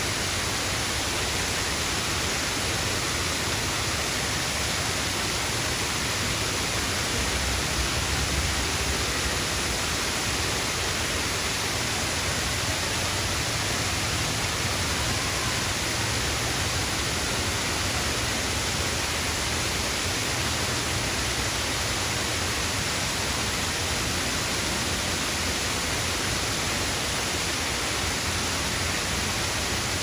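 Small waterfall pouring over a rock ledge and splashing into the pool below: a steady, unbroken sound of falling water.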